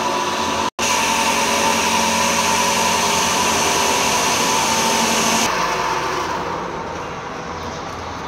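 Electric power tool grinding metal, running with a steady high whine. It breaks off for an instant about a second in, then turns quieter and duller about five and a half seconds in.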